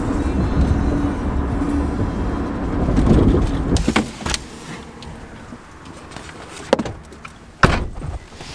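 Steady low rumble of a car's engine and road noise heard from inside the cabin while driving. About four seconds in it drops to a quieter background, broken by a few sharp knocks and clicks, the loudest near the end.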